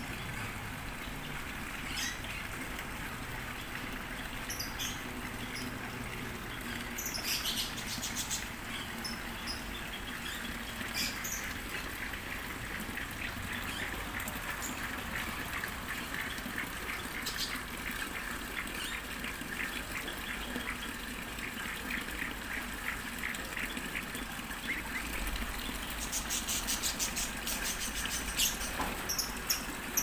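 Birds in an aviary chirping and calling: short high chirps, a long run of evenly repeated notes through the middle, and rapid trills about seven seconds in and again near the end, over a steady background rush.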